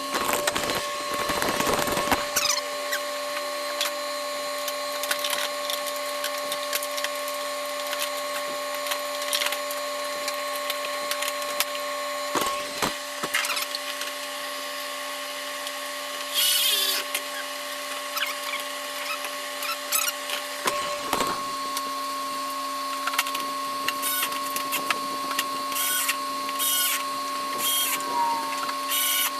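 Hand tools and mower parts clicking, knocking and clattering during reassembly work, over a steady hum. The clattering is heaviest in the first two seconds. Short bursts of rapid rattling come a little past halfway and several more times near the end.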